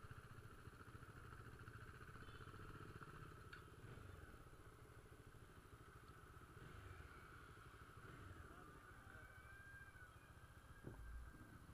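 Faint low rumble of motorcycle engines idling, with a short dull thump near the end.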